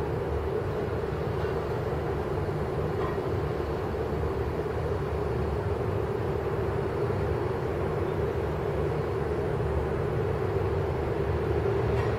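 Steady low rumble with a hum, growing slightly louder near the end.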